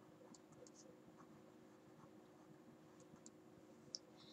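Near silence with faint, scattered taps and scratches of a stylus writing on a tablet screen, and one sharper click near the end. A faint steady hum lies underneath.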